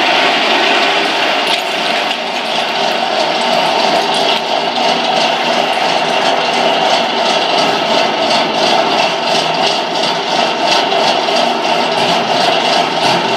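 Vibration feeder running steadily, its under-tray vibration drive giving a constant loud hum and buzz. Rock pieces rattle on the shaking steel tray as they are carried along and off the end.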